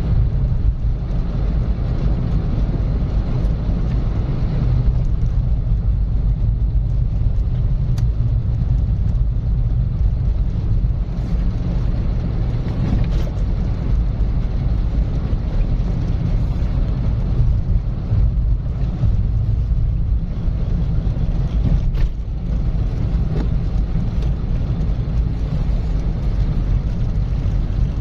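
A car driving steadily on a country road: a constant low rumble of engine and tyres on the road surface, with a few faint clicks now and then.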